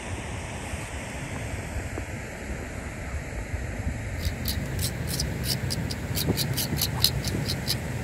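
Steady wind noise on the microphone. In the second half comes a quick, even run of about a dozen short, crisp strokes, roughly four a second.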